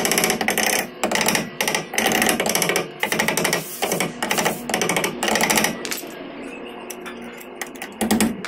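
A small sledgehammer striking a steel chisel against the stuck inner race of an old rear wheel bearing on a Fiat Uno's stub axle, driving it off. The strikes come in quick metal-on-metal runs about twice a second for the first six seconds, go quieter, then come back once near the end.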